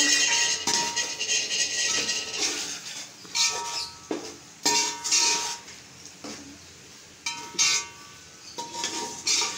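A slotted spatula scraping and knocking against the sides of a metal cooking pot as a thick masala is stirred. Each irregular stroke, roughly one a second, gives a short scrape and a brief metallic ring from the pot.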